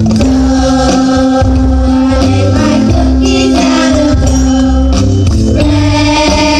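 Children's choir singing with instrumental accompaniment, held notes over a steady bass line, with a light jingling percussion.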